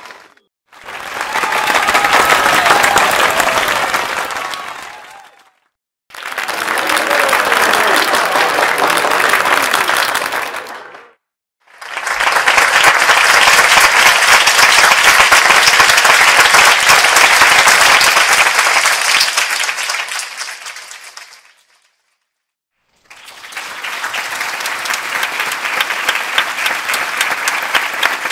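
Crowd applause in four separate takes, each swelling up and fading out with a brief silence between them. The third take is the longest and loudest, and voices call out over the clapping in the first two.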